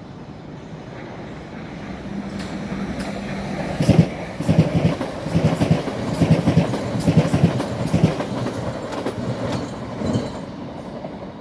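South Western Railway passenger train passing close by. Its wheels clack in quick runs over rail joints above a steady hum. The sound builds over the first few seconds, is loudest through the middle and eases near the end.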